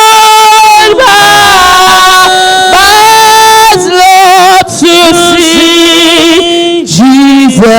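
Slow worship singing in long held notes with vibrato, the phrases changing pitch every second or so.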